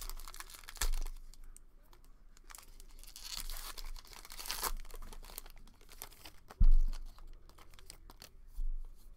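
Foil wrapper of a 2020 Topps Gypsy Queen trading-card pack being torn open and crinkled, with a few dull thumps, the loudest about two-thirds of the way through.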